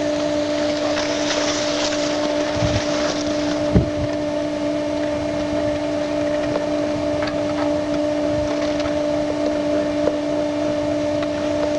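A steady low hum at two constant pitches over a wind-like hiss on the camcorder's microphone, with a single knock about four seconds in.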